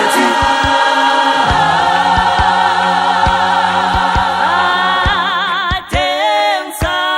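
Choir singing a long held chord over a steady low beat, then breaking into short phrases with wide vibrato near the end.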